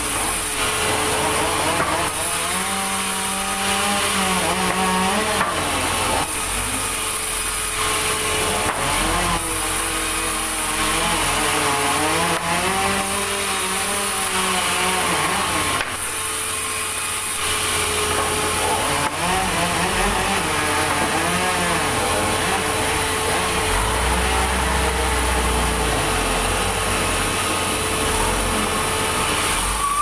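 Large vertical band saw running and cutting through thick timber. Its pitch rises and falls in slow arcs several times over a steady underlying tone.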